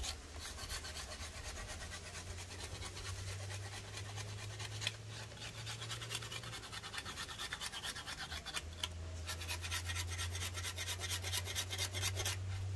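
Blade scraping the thin outer bark off a freshly cut Ceylon cinnamon branch: quick, repeated scraping strokes, many a second, with a couple of brief pauses.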